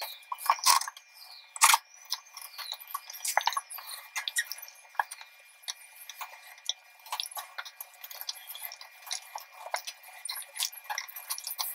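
Thread tap being turned by hand inside a bicycle fork's steerer tube with a T-handle, in short turns forward and back: irregular metal clicks and ticks. Over the first few seconds each turn also gives a short squeal that rises and falls in pitch, about once a second.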